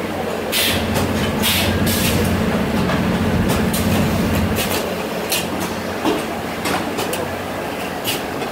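Machinery of an oil/fuel filter element assembly line running: a steady low hum with sharp clacks and short hisses at irregular intervals, roughly one a second.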